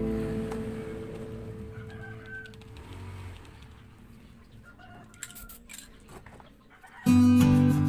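Acoustic guitar background music fades out, leaving a quiet gap with a few faint short chirps and clicks. The music comes back in abruptly about seven seconds in.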